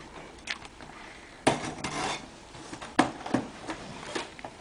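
A cardboard shipping box handled on a table as it is being opened with a utility knife: several sharp knocks and a brief scraping about a second and a half in.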